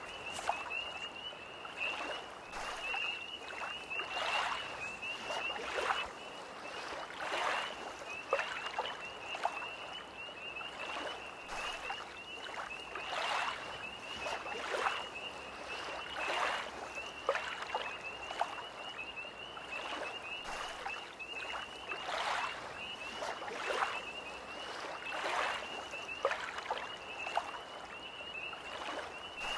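Small lake waves lapping against the shore in short splashes every second or so. Behind them runs a continuous high, pulsing trill of tree frogs.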